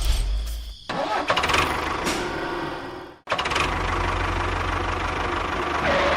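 Small engine running, heard in short clips that cut off abruptly about a second in and again about three seconds in.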